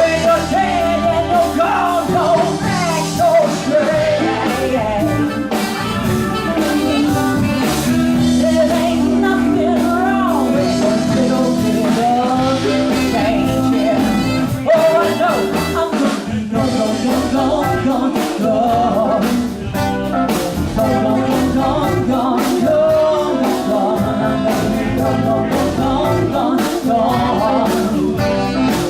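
Live blues-rock band playing an instrumental passage: drums, bass and keyboards under a bending melodic lead line, with no words sung.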